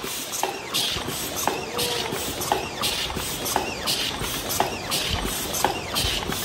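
MG-HC60 double-wall paper cup machine running at production speed: a constant mechanical clatter with a sharp burst and clicks repeating about once a second as the forming turret cycles.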